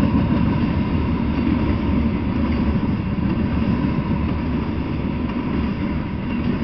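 Freight train of covered hopper cars rolling past: a steady low rumble of steel wheels on the rails.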